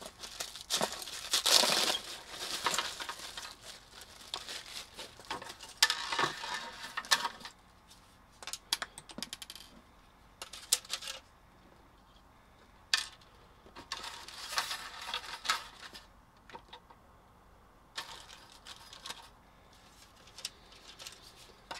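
Clear plastic wrapping crinkling as it is pulled off a battery-box kit, then scattered clicks and light rattles of black plastic 18650 cell holders and nickel strips being handled. The crinkling is dense in the first several seconds and thins to occasional clicks after that.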